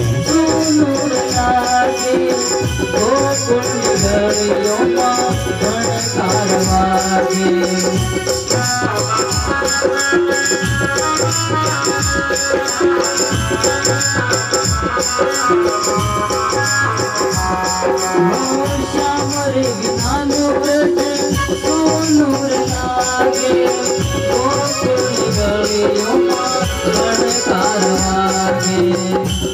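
Live Gujarati folk bhajan ensemble playing an instrumental passage: harmonium and electronic keyboard carry the melody over a steady hand-drum beat with jingling rattles or small cymbals.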